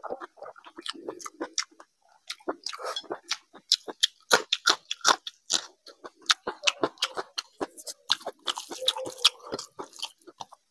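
Close-miked chewing of rice and curry eaten by hand: wet, smacking mouth clicks in quick, irregular succession.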